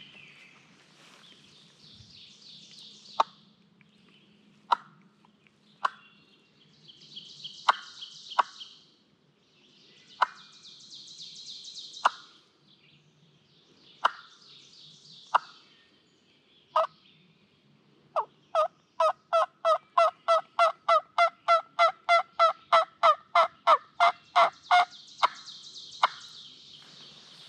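Turkey call yelping: scattered single clucks and yelps, then a long, even run of about twenty yelps at roughly three a second in the second half.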